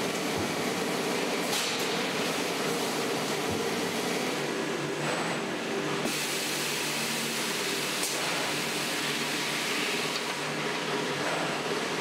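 Industrial plastics-processing machinery running steadily: a constant hum with hiss and a few brief clicks.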